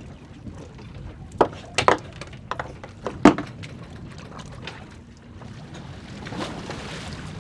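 A handful of sharp knocks and clacks of fishing gear, loudest about three seconds in, as an angler works a hooked fish up to the boat. Under them is the steady low hum of the boat, and a hissing rush swells near the end.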